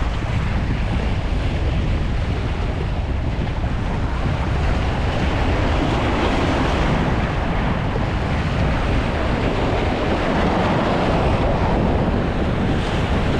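Waves washing and splashing against the shore just below, with steady wind noise buffeting the microphone.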